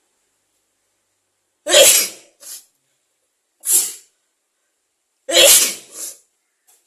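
A person sneezing three times, about two seconds apart; the first and last sneezes are the loudest, each with a short, weaker tail.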